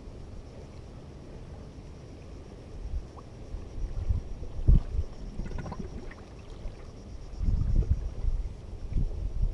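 Wind buffeting the microphone as a low rumble, swelling in gusts about halfway through and again near the end, with a few faint knocks of rod and reel handling.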